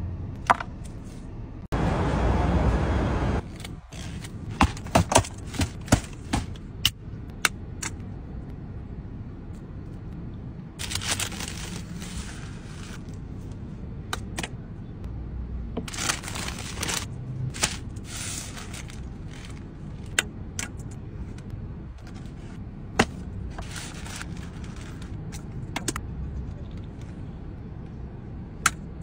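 Close-up food-handling sounds: a plastic spoon scraping in a paper cup, and crackles and rustles as crusty bread is torn and paper wrapping is handled. A loud rustling stretch comes a couple of seconds in, then a run of sharp clicks, with single clicks now and then later on.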